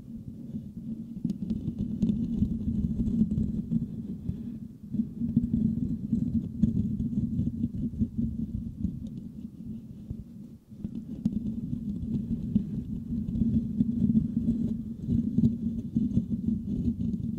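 Fingertips scratching and rubbing directly on the metal mesh grille of a Blue Yeti microphone: a close, rapid, crackly scratching that is deep and muffled, with a short pause about ten seconds in.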